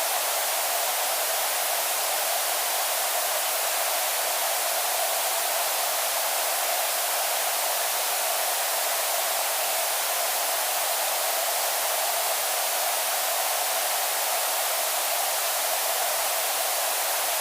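Television static: the steady, unchanging hiss of a TV with no signal, thin and bright, with no low rumble.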